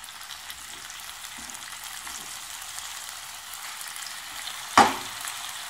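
Raw chicken breast strips sizzling in hot oil in a frying pan as more pieces are laid in. There is a single sharp knock about five seconds in.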